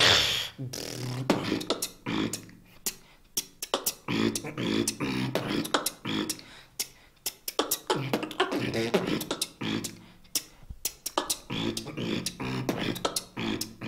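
Solo vocal beatboxing: a fast, dense pattern of mouth-made kick, snare and hi-hat hits, with short pitched vocal tones between the hits.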